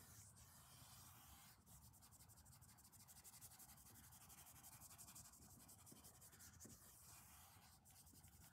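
Faint scratching of a paintbrush dragging oil paint across paper canvas.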